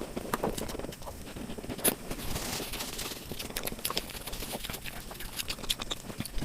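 Close-up mouth sounds of a person chewing sweets: a steady run of small wet clicks and crunches, with one sharper bite about two seconds in.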